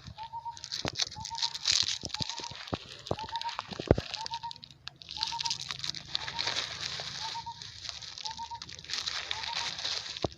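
A bird repeats one short call about every three-quarters of a second. Over it come bouts of crinkling and rustling with sharp crackles, loudest near two seconds in and again in the second half.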